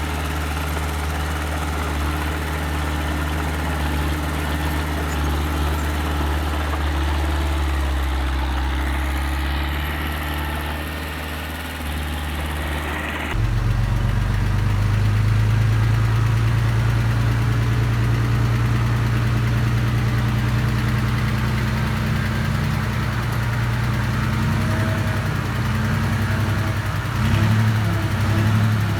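Engines of small earthmoving machines, a mini dump truck or small bulldozer, running steadily. About 13 seconds in the sound switches abruptly to a different, slightly louder engine note, and it swells briefly near the end.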